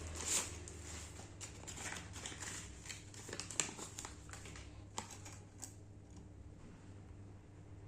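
Packaging being handled during an unboxing: crinkling and rustling with irregular small clicks, which thin out near the end.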